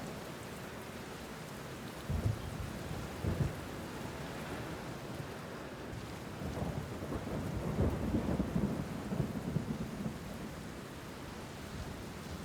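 Steady rain with thunder: short low rumbles about two and three seconds in, then a longer rumble that swells and fades through the middle.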